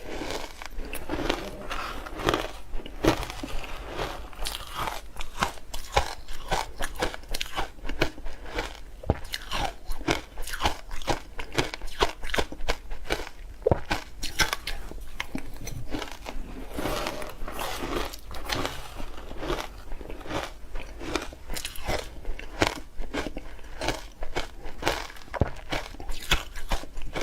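Ice being bitten and chewed close to the microphone: many sharp, crackling crunches in quick succession, with short pauses between bites.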